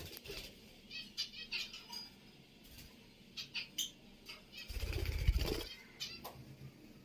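African lovebirds giving short, rapid, pulsed chirps, with a louder low rustling burst about five seconds in.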